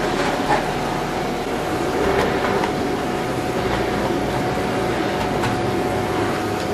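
Canister vacuum cleaner running steadily, with a steady motor tone over the airflow noise, as its floor head is pushed over a thick shag rug.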